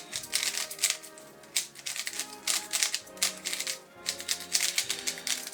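Plastic speed cube being turned quickly, its layers clacking in rapid bursts with brief pauses between them; the cube is lubricated with a heavy, weight-5-like lubricant (Fiddy K) and feels slow. Background music plays under it.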